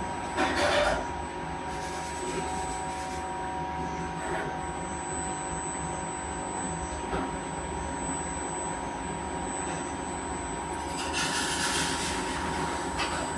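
A small CNC cutting machine running steadily, its spindle and drive motors giving a constant whine over a low hum, with short louder bursts of cutting noise about half a second in and again near the end.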